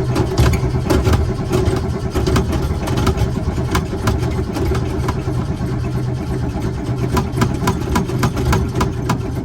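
Car engine being cranked over on the starter while flooded with fuel from pumping the gas pedal, a steady churning sound with uneven sharp ticks.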